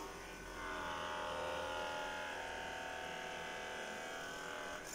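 Handheld electric percussion massage gun running against the side of the armpit: a steady motor buzz whose pitch drifts slightly.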